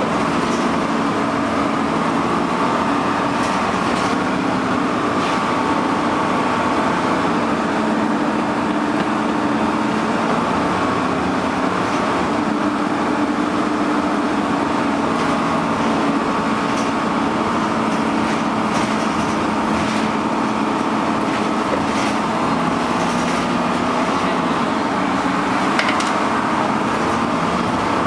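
Dennis Dart SLF bus with its engine cooling fan running: a steady, unchanging mechanical hum with constant tones over the engine, and a few faint light clicks.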